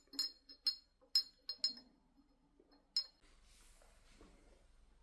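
Several light, ringing clinks of glass or ceramic kitchenware in the first three seconds, followed by a soft steady hiss.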